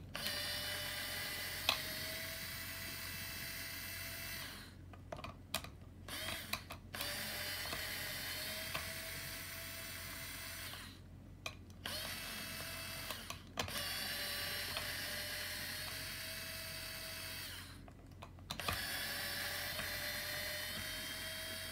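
Electric screwdriver motor whirring in several runs of a few seconds each, with short pauses between, as it backs screws out of a stroller wheel's hub.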